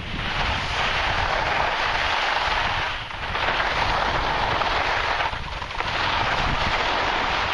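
Skis scraping across snow in three long stretches, one per turn, with short breaks between them. Wind rumbles on the microphone underneath.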